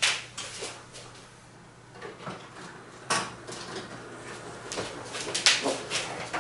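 Scattered clicks and knocks of hands working switches and handling parts of a model railway layout's baseboard, with a sharper clack about three seconds in and a cluster of clicks near the end, over a faint steady low hum.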